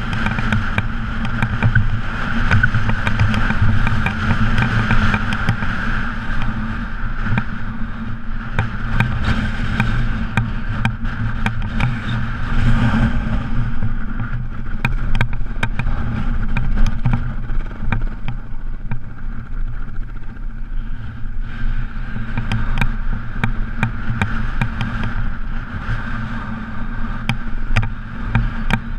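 KTM enduro dirt bike's engine running steadily under way over rough ground, with frequent short clicks and knocks throughout.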